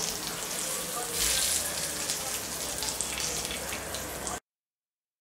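Hot melted clarified butter with red pepper sizzling and crackling as it is poured onto diced lamb and yogurt-eggplant purée. It gets louder about a second in and cuts off suddenly near the end.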